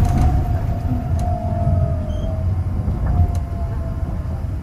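Rubber-tyred automated guideway train of the Osaka Metro Nanko Port Town Line running on its elevated guideway, heard from inside: a steady low rumble with a faint whine that falls slightly in pitch over the first couple of seconds.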